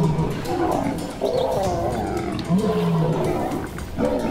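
Lions growling and snarling while attacking a Cape buffalo. Several rough calls follow one another, one rising and then held about two and a half seconds in.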